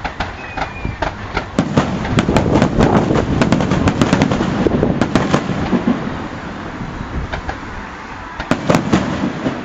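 Fireworks display: rapid bangs and crackling shell bursts over a continuous rumble. The barrage is densest from about a second and a half in to about six seconds, eases off, then picks up again with sharper bangs near the end.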